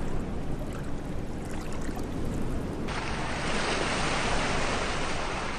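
A low rush of wind and water, then from about three seconds in, small waves washing up a sandy beach as a steady surf hiss.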